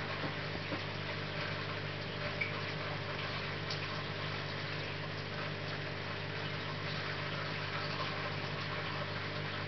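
Aquarium filter pump running with a steady low hum under a continuous rush of moving water, with one small click about two and a half seconds in.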